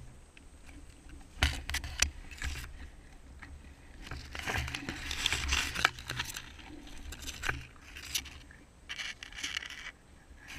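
Leaves and grass rustling and scraping against the camera as it is pushed through dense undergrowth, with scattered snaps and footsteps. There is a cluster of short snaps early on, a longer rustle midway and another brief rustle near the end.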